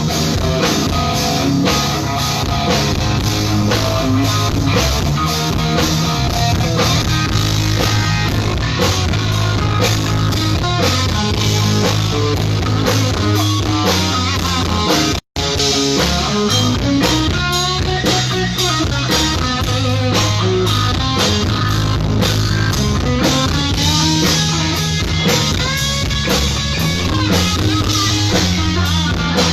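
Loud rock music with guitar and a drum kit. About halfway through there is a split-second dropout to silence.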